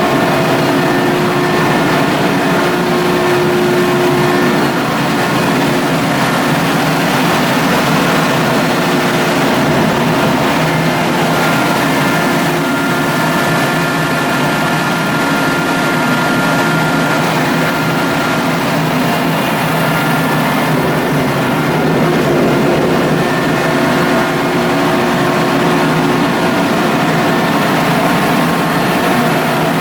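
Ship's machinery running steadily, a continuous droning noise with several steady humming tones through it.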